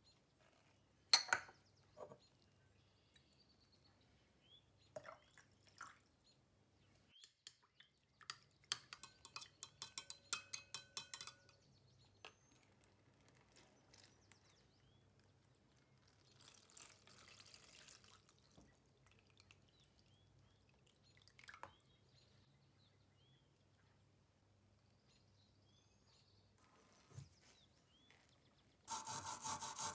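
A glass stirring rod clinks and taps against a glass beaker of salt water, in a quick flurry of ringing clicks. A short pour of the liquid follows. Near the end a wire brush starts scrubbing rapidly back and forth on rusty metal, the loudest sound.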